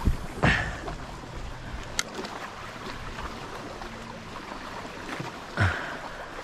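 Lake water lapping and sloshing around a chest-deep wader, heard from right at the water's surface. There are two louder splashes, about half a second in and near the end, and a single sharp click about two seconds in.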